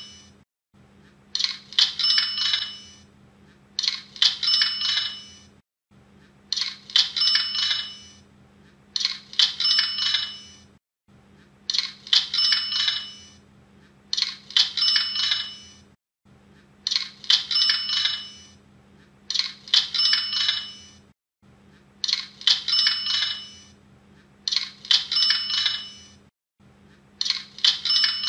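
Cash-register 'ka-ching' sound effect, the Hotmart sale notification sound, repeating about every two and a half seconds: each time a short rattle followed by a bright bell ring.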